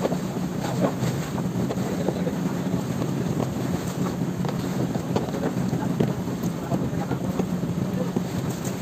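Outrigger fishing boat's engine running with a steady hum, with water splashing and rushing along the hull and outrigger.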